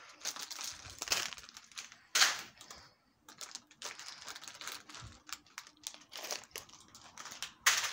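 Rustling, crinkling handling noise as plush toys are moved about and rub against the phone, irregular, with a louder scrape about two seconds in.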